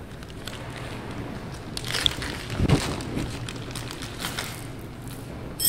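A clear plastic parts bag crinkling as it is handled and opened, loudest in the middle, followed by a few light clicks of small screws.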